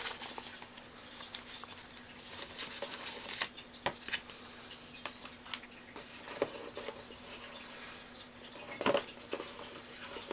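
Scattered light clicks, taps and rustles of hands handling the paper inserts and cardboard packaging of an iPad box, over a faint steady hum.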